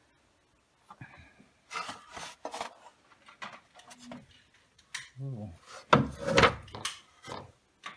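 Irregular knocks, clunks and scraping as the upper intake manifold plenum of a Ford Windstar 3.8 V6 is worked loose and lifted off the engine, loudest about six seconds in.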